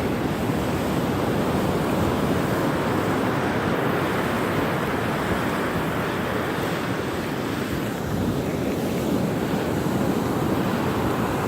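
Storm surf breaking on a beach ahead of a hurricane, with wind blowing across the microphone: a steady, loud rush of noise.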